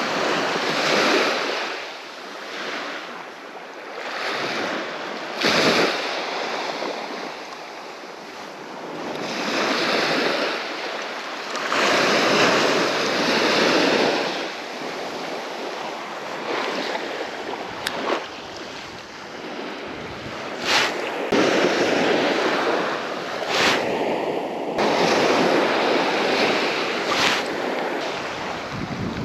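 Small waves breaking and washing up a sandy beach, swelling and falling back every few seconds. A few short sharp clicks come in the second half.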